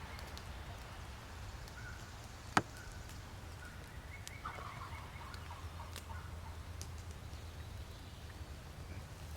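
A wild turkey gobbling faintly, one short rattling gobble about four and a half seconds in, over a low steady hum. A single sharp click about two and a half seconds in is the loudest sound.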